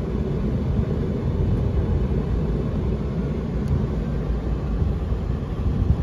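Steady low rumble of a Trane heat-pump rooftop unit running on a fan-only call: the supply blower is on and the compressor is off.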